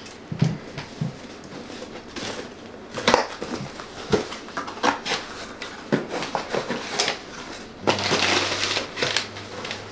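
A cardboard shipping box being opened by hand: a string of sharp crackles and snaps from the cardboard and tape, then a longer rustle near the end as the packing paper inside is disturbed.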